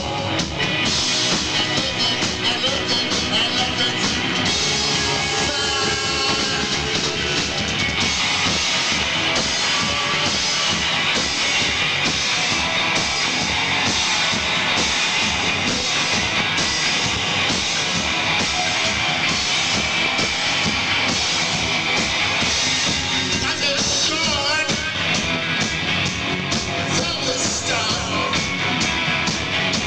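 Rock band playing live, loud and steady throughout, with guitar and a drum kit.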